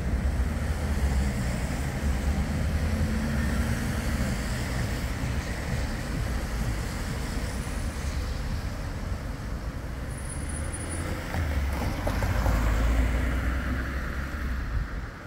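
Wind rumbling and buffeting on the microphone over the steady noise of street traffic, which swells a little about twelve seconds in.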